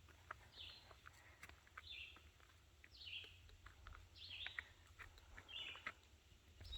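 A bird calling faintly: a short, high chirp that falls in pitch, repeated about every second and a quarter.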